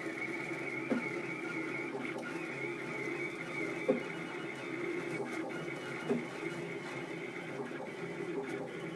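3D printer running: a steady, slightly wavering whine from its stepper motors, with a few short blips as the axes change moves.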